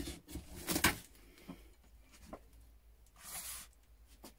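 Old hand tools being handled and set down on a wooden workbench: two light knocks in the first second, then a short rustle a little over three seconds in.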